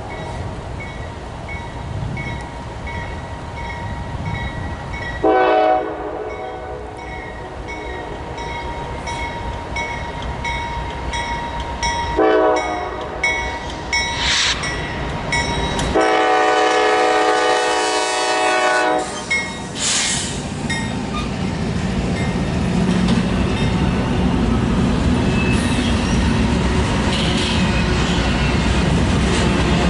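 Locomotive air horn blowing two short blasts several seconds apart, then one long blast of about three seconds, over a bell ringing about twice a second. After the horn the train rumbles past, its wheels clacking over the rail joints.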